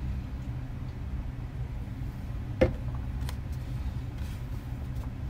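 Steady low machinery hum, with a single short knock about two and a half seconds in.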